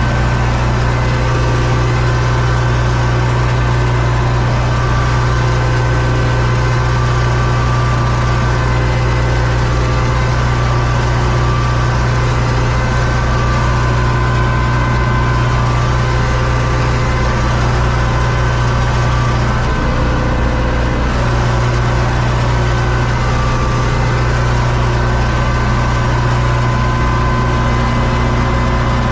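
Universal U650 tractor's four-cylinder diesel engine running steadily under load while pulling a corn planter, heard from inside the cab as a loud, even drone.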